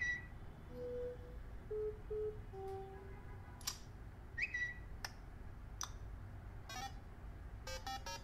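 A string of short iPhone system sounds previewed one after another through the phone's small speaker. There is a rising chirp at the start and again about halfway, a few short low beeps, several sharp clicks, and a quick run of beeps near the end.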